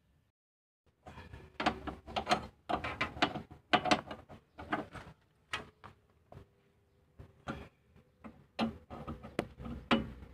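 Irregular clicking, knocking and clattering of metal tool work on truck air-brake fittings, starting about a second in, easing off in the middle and picking up again near the end, with a faint steady hum beneath.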